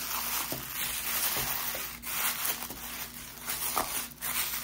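Rustling and rubbing of packaging being handled, with a few short crackles and clicks.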